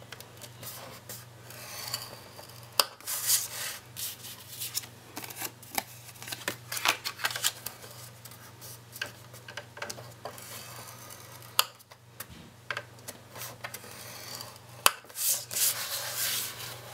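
Scoring stylus scraping along the grooves of a scoring board, pressing fold lines into black cardstock in a series of rasping strokes, with a few sharp clicks, over a steady low hum.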